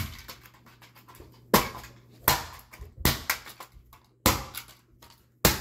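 A plastic toy car being struck again and again with a hard object: about five sharp cracking blows, roughly a second apart, with smaller knocks in between.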